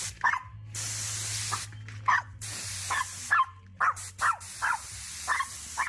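Short blasts of compressed air hissing from a pneumatic blow gun, while a miniature pinscher barks about ten times in between and over them, barking at the blowing air.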